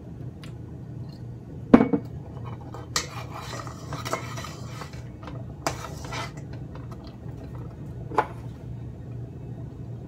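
Metal spoon clinking against a stainless steel saucepan, with stirring in the sauce. The loudest clink comes about two seconds in and a few more follow, with a stretch of stirring noise between about three and five seconds, all over a low steady hum.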